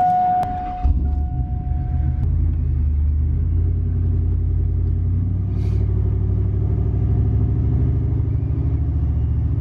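Supercharged pickup truck engine started with the key, catching about a second in, then running steadily with a low drone as the truck drives off. A steady beep-like tone sounds over the start and stops about two seconds in.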